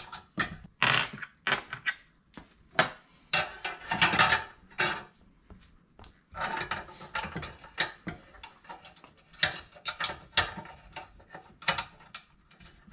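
Hand ratchet wrench clicking in short irregular runs with pauses between, as the bolts of an exhaust muffler bracket are turned.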